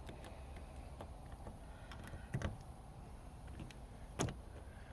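A few short clicks and knocks from the car's door handle and emergency key lock being worked, one about two and a half seconds in and a sharper one near the end, over a low steady background rumble.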